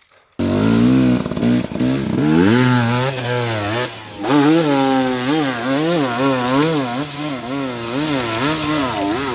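Dirt bike engine running under hard throttle, its pitch rising and falling over and over, about once or twice a second. It cuts in suddenly just after the start and drops away briefly about four seconds in before picking up again.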